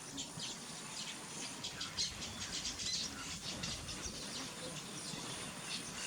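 Bird calls: many short, high chirps in quick succession, over a faint outdoor background.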